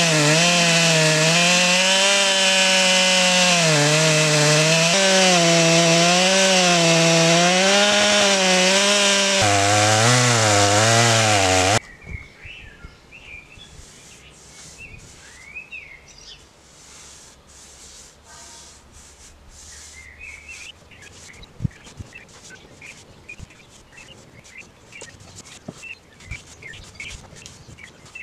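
Stihl MS661 two-stroke chainsaw cutting through a beech slab, its pitch rising and falling as it loads in the cut and dropping lower shortly before it cuts off about twelve seconds in. After that, a paintbrush scrubbing sealer onto the end grain of wooden slabs in short repeated strokes, with birds chirping.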